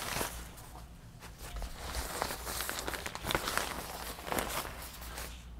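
Large waterproof ATV cover rustling and crinkling as it is pulled and handled over its PVC frame, with scattered light knocks.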